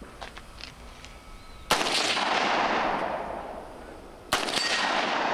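Two shots from an AR-15-style rifle about two and a half seconds apart, each a sharp crack followed by a long fading echo.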